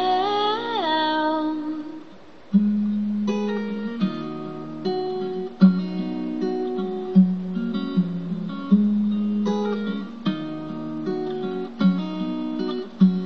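A woman's sung note fades out in the first couple of seconds, then an acoustic guitar plays a steady picked pattern of notes.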